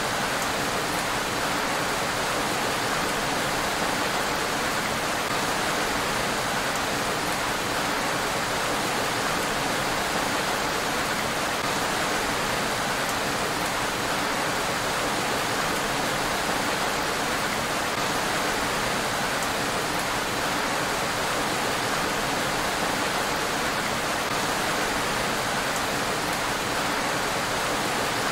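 Steady rain falling on a road: an even, unbroken hiss, with no thunder.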